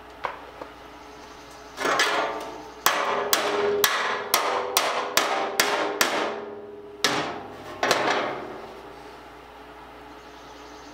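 Hammer striking the steel sheet of a bin being tack-welded, each blow ringing like metal: a couple of single blows, then a quick even run of about three blows a second, then two more spaced out near the end.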